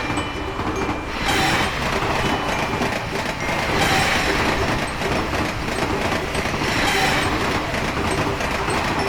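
Train running on the rails with the clickety-clack of its wheels: a steady, dense rumble that swells about every three seconds.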